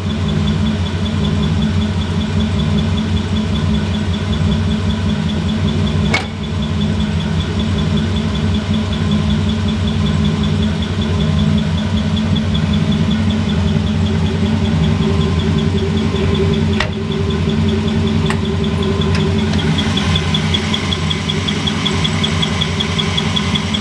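Ford 347 cubic inch V8, a bored and stroked 302 block, idling steadily. Two sharp clicks, a few seconds in and again later, as the hood is worked open.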